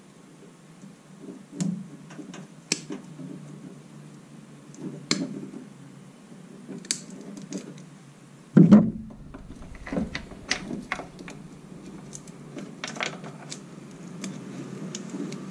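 Scattered clicks and small knocks of hand tools working at the wiring of a plastic tail light housing, with one heavier thump a little past halfway.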